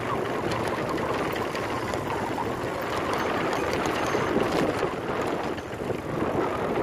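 Steady rush of wind buffeting the microphone, mixed with tyre and road noise and small rattles from riding a bike.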